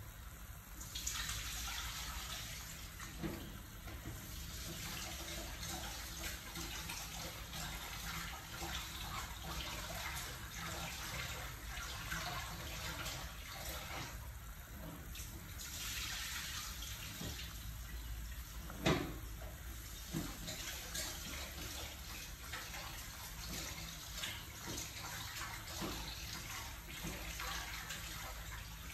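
A pot of soup at a steady rolling boil, bubbling continuously. A single sharp knock stands out about two-thirds of the way through.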